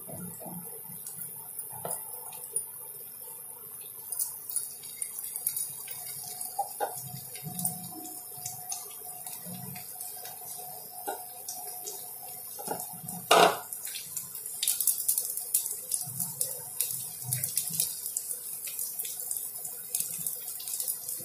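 Snake gourd pieces stuffed with potato and coated in batter sizzling and crackling in hot mustard oil in a frying pan, the spitting growing thicker over the last several seconds. One sharp knock about two-thirds of the way through is the loudest sound.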